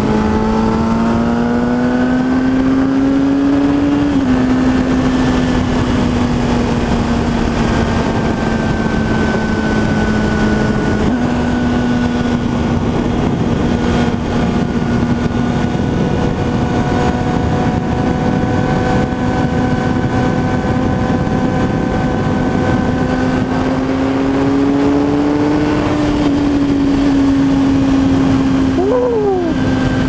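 A 2006 Kawasaki ZX-10R's inline-four engine, breathing through a Two Brothers Racing M-2 VALE exhaust with the catalytic converter deleted, running at road speed over steady wind rush. The engine note climbs for the first few seconds and drops sharply about four seconds in. It then mostly holds steady and climbs again briefly near the end.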